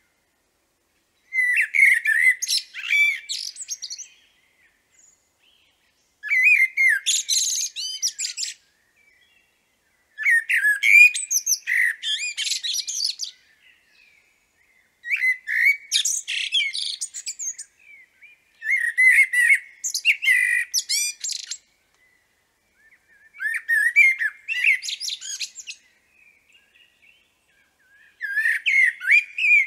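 Common blackbird singing: seven separate song phrases of two to three seconds each, with short pauses between. Each phrase starts on lower whistled notes and breaks into high twittering.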